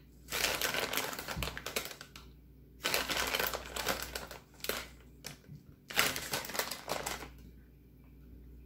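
Plastic bag crinkling in three bursts as a metal spoon scoops white powder out of it.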